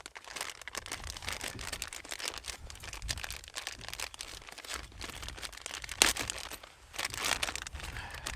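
Rustling and crinkling with many small clicks as a fishing lure is taken out of a tackle box and handled; one sharper click about six seconds in.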